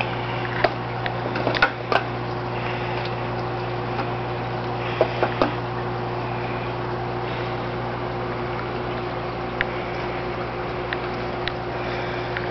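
Steady hum of aquarium water pumps with a running-water hiss, and a few sharp clicks in the first half.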